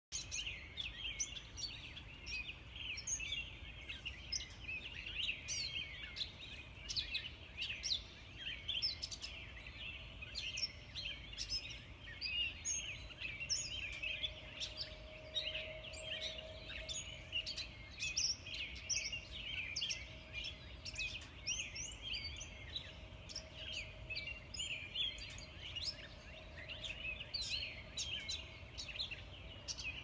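Dawn chorus: many songbirds singing and chirping at once in dense, overlapping bursts. A faint steady hum sits underneath, strongest about halfway through.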